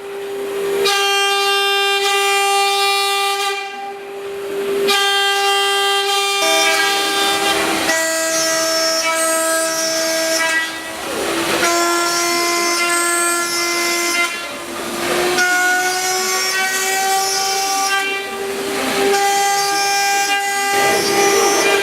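CNC milling centre cutting, giving a loud sustained pitched whine with strong overtones. The pitch steps to a new note a few times, with short noisy breaks between the runs.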